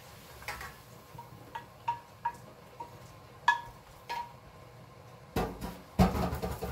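Metal cookware clinking: a skillet being tapped and scraped against a stainless steel colander while draining browned sausage, about eight light ringing taps. Two louder clattering knocks follow near the end.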